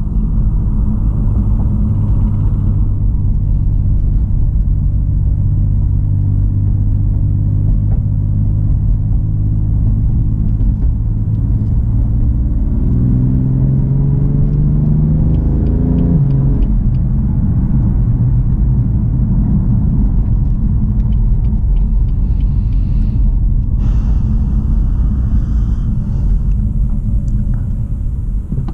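BMW M3 F80's twin-turbo inline-six running under a steady low rumble of the car on the road. About halfway through, the engine pitch rises for a few seconds as the car accelerates, then drops sharply at a gear change.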